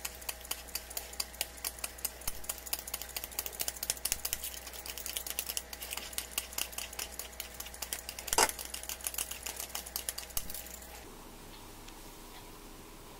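A small metal blade shaving curls off a bar of sweet chocolate into a glass bowl: a quick, even run of dry scrapes about five a second, with one louder scrape about eight seconds in. The scraping stops near the end, leaving faint room tone.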